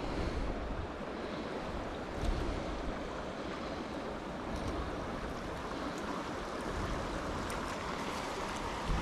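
Steady rush of river water running over a shallow riffle, with some wind rumble on the microphone.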